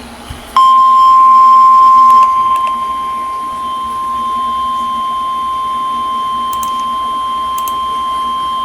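Emergency alert attention signal: a single steady high-pitched tone near 1 kHz, typical of the NOAA Weather Radio warning alarm tone that precedes a warning broadcast. It starts about half a second in, very loud, and drops in level about two seconds later but keeps sounding.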